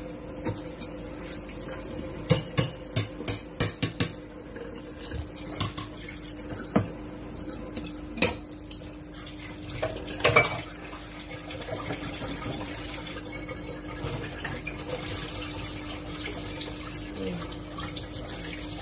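Water running from a kitchen tap, with dishes and utensils clinking now and then over a steady low hum. The clinks come in a cluster a couple of seconds in and again twice later on.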